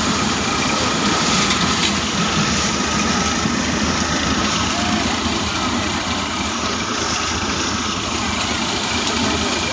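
Tractor-driven paddy thresher running steadily, a continuous loud mechanical drone with no break.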